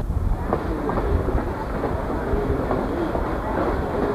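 Steady rumble and clatter of a passenger train car rolling along the track, heard from on board, with sharp clicks of the wheels over the rail joints.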